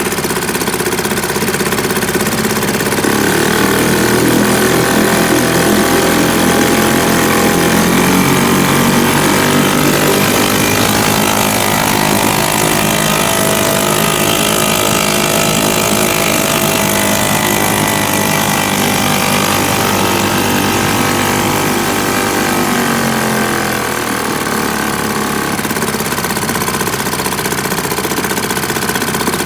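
British Seagull two-stroke outboard motor running steadily. Its speed picks up a few seconds in, is held higher through the middle, then drops back about three-quarters of the way through.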